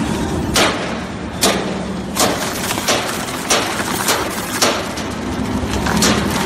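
A 1000 twin-shaft shredder's hooked cutters tearing up a car tyre: a series of sharp cracks and bangs, roughly one or two a second, as the rubber is bitten and ripped, over the steady hum of the machine's drive.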